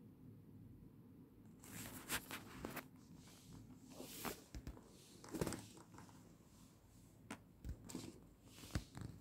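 Faint handling noise from a pair of canvas high-top sneakers being moved and picked up by hand: scattered knocks and short rustles, the loudest about five and a half seconds in, over a low steady hum.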